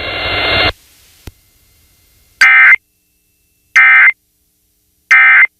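Emergency Alert System end-of-message data tones: three short, shrill bursts of the digital modem signal about 1.35 s apart, marking the end of the alert. A loud hiss of broadcast noise cuts off under a second before them.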